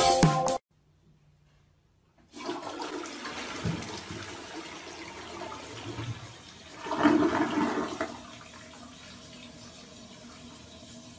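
Rushing water that starts suddenly, swells about seven seconds in and then dies down to a faint steady wash.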